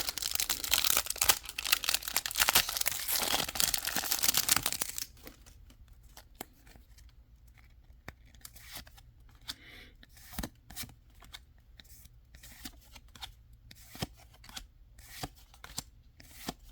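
A foil Pokémon card booster pack is torn open and crinkled for about five seconds. This is followed by faint, scattered taps and clicks of cards being handled.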